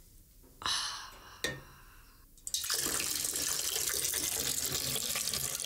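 Water worked with a wooden sauna ladle and bucket close to the microphone: a couple of short splashes early, then a steady rush of water noise from about two and a half seconds in.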